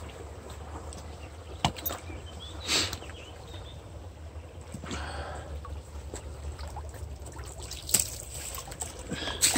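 Shallow brook water sloshing and trickling around a Labrador wading in it, with several short sharp splashes or knocks scattered through.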